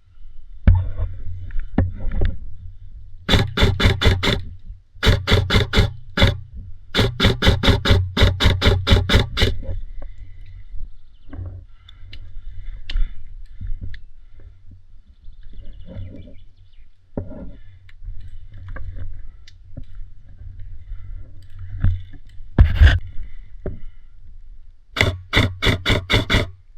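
Airsoft rifle firing on full auto in rapid bursts: three bursts in the first ten seconds, the middle one the longest, and another near the end, with a single loud knock shortly before it and quieter rustling and handling noise in between.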